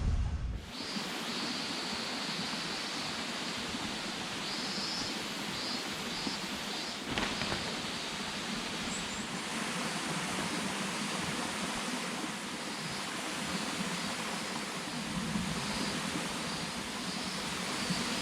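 Steady rushing of flowing water, like a stream, with one soft knock about seven seconds in.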